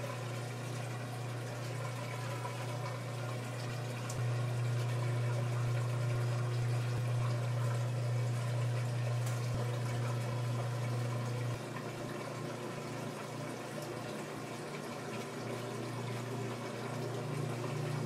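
Whirlpool direct-drive top-load washer running its drain cycle: a steady motor hum with the drain pump pushing water out. The hum gets louder about four seconds in and drops back a little before twelve seconds.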